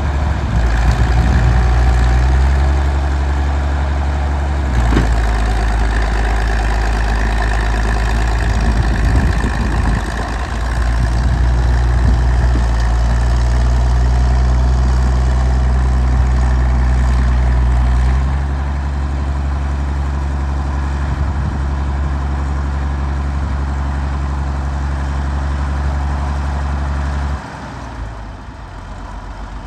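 1952 Caterpillar D6-9U bulldozer's diesel engine running, its pitch and loudness shifting several times as the throttle and load change. Near the end it drops sharply to a quieter idle.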